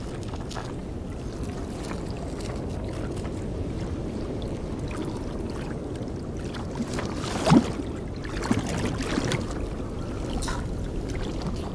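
Low, steady underwater rumble with scattered faint pops and clicks, one louder pop about seven and a half seconds in.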